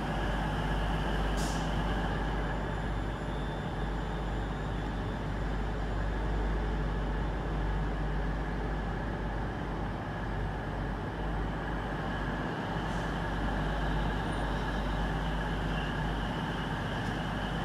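Steady low rumble of an East Midlands Railway Class 222 Meridian diesel train idling at the platform, with two short hisses of air about a second and a half in and again near thirteen seconds.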